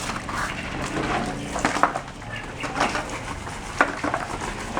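A few sharp knocks and clatters of household objects being handled, moved and set down.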